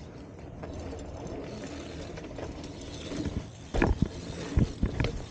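BMX bike rolling along a sidewalk: a steady rolling noise with light ticks and rattles, then a quick run of loud knocks and clatters from the bike about four seconds in.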